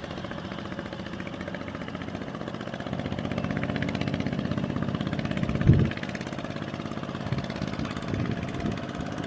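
Kubota two-wheel walking tractor's single-cylinder diesel engine chugging steadily as it hauls a loaded trailer through mud, working harder from about three seconds in. A loud thump comes a little past the middle.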